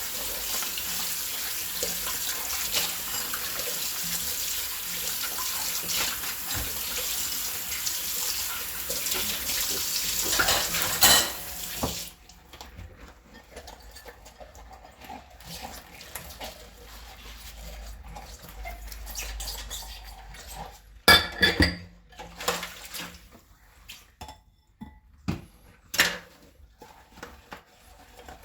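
Hand-washing plates and bowls at a kitchen sink: a tap runs steadily, then is shut off a little before halfway through. After that comes quieter sponge scrubbing with clinks of crockery, and a few louder clatters of dishes knocking together in the second half.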